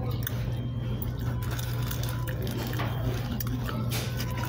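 Steady low mechanical hum of the room, with small scattered clicks and rustles as a person eats fried chicken from a cardboard box and licks her fingers.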